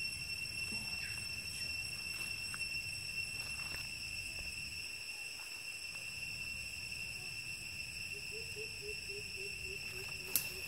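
Steady high-pitched drone of insects, a few fixed whining tones held without a break. About three-quarters of the way in, a low call starts pulsing at three or four beats a second, and a single sharp click comes near the end.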